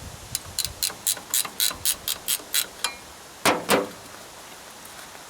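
Ratchet wrench clicking in a steady run of about eleven clicks, four to five a second, as a nut is backed off, followed by two louder metallic clanks about three and a half seconds in.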